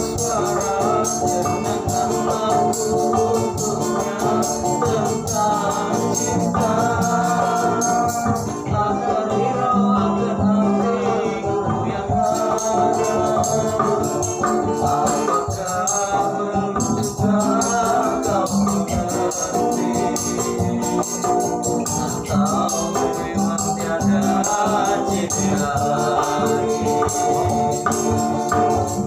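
Acoustic guitars playing a dangdut song, a lead melody sliding over strummed chords, with a steady jingling percussion beat.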